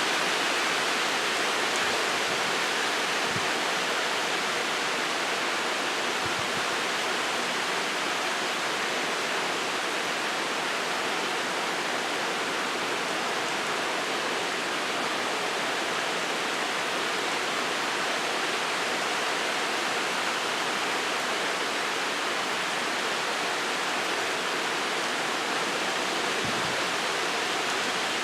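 Rain and wind in a storm: a steady, even hiss with no letup.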